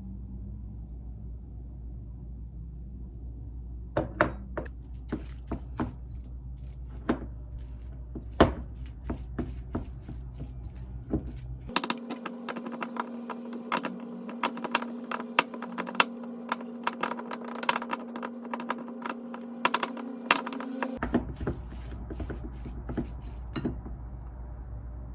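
Kitchen work: scattered clinks and knocks of utensils and dishes over a steady low hum. For about nine seconds in the middle a steadier, higher-pitched hum runs under quicker, denser clatter, then the low hum returns.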